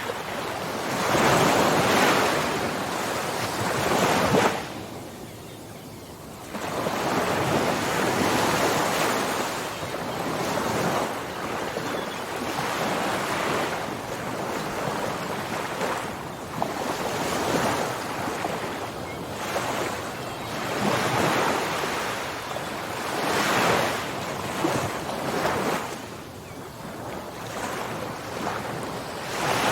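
Ocean surf: waves breaking and washing in, swelling and falling back every few seconds, with a short lull about five seconds in.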